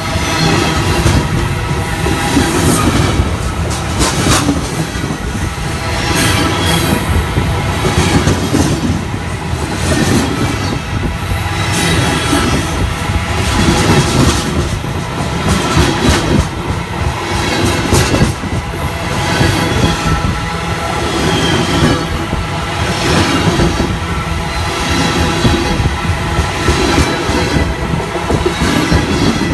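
Train wheels rolling over freshly ground rail: a loud, continuous rumble with a steady ringing of several tones held above it and occasional sharp clicks from the wheels.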